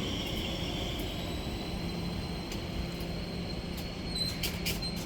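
Electric train approaching through the station: a steady low rumble with a thin, high whine from the rails, and a few sharp clicks near the end.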